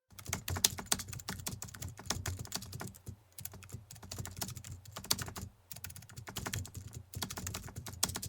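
Rapid, irregular key clicks of typing on a keyboard, in runs broken by short pauses about three seconds in and again about five and a half seconds in.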